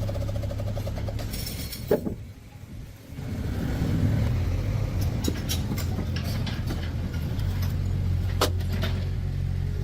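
A vehicle engine running steadily, dipping in level for about a second two seconds in, with a couple of sharp knocks, one near the end.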